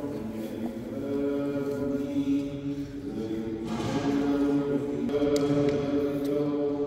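A voice chanting in long, held notes, with a break partway through.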